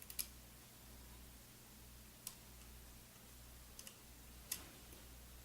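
Faint, scattered clicks of a hook pick and tension wrench working the discs of a MIWA U9 sidebar disc lock, about half a dozen small ticks spread across a few seconds.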